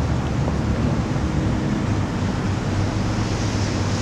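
Wind buffeting the camera's microphone: a steady rushing noise with an unsteady low rumble.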